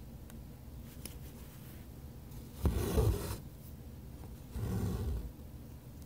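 Three strands of no. 25 embroidery floss being drawn through cotton fabric, making two short scraping pulls: one about three seconds in and another about five seconds in.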